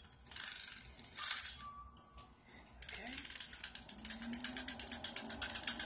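Battery-powered mini frother whisking mica colour in oil in a small cup, giving a rapid clicking rattle of about eight clicks a second that starts about halfway through.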